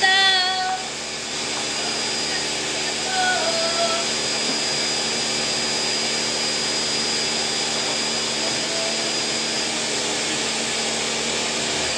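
Countertop blender motor running steadily as it purées a sauce.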